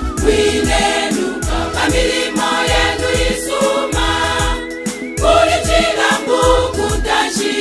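A choir singing a gospel song over a backing with a steady low beat.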